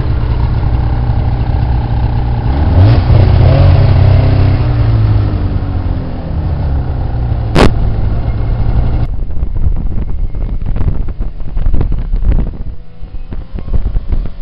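Snowmobile engines running, one revving up with rising pitch about three seconds in, with a single sharp click about halfway through. Partway through, the sound switches abruptly to gusty wind buffeting the microphone over faint engine noise.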